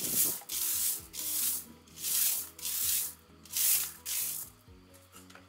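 Rake scraping through crushed-rock gravel in quick repeated strokes, about two a second, stopping a little after four seconds in.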